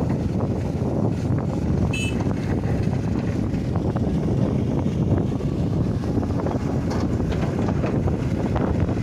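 Heavy construction machinery running with a steady low rumble, mixed with wind buffeting the microphone; a short high-pitched beep about two seconds in.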